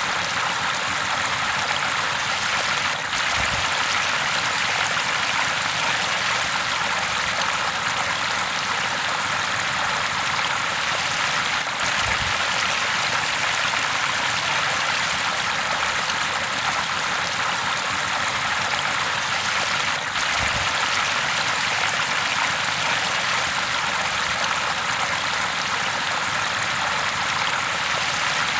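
River water flowing steadily, an even rushing with a trickle in it.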